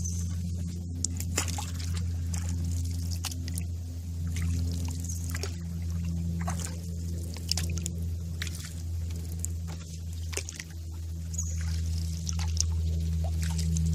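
Water dripping and sloshing around a canoe being paddled, in scattered small drips and splashes, over a steady low hum.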